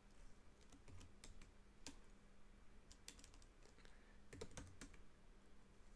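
Faint computer keyboard keystrokes, a few scattered taps and small clusters of quick presses, as a terminal command is deleted back character by character.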